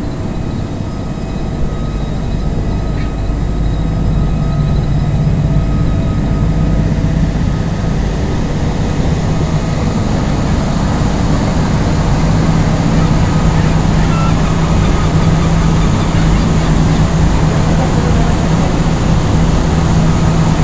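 Motorboat engine running steadily under way, with water churning in the wake. It grows louder over the first few seconds, then holds at a steady drone.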